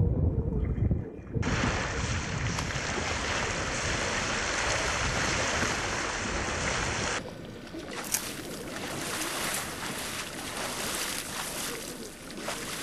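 Open-sea sound of wind and choppy water: a low wind rumble on the microphone at first, then a steady rush of moving seawater, changing about seven seconds in to rougher water with small sharp splashes.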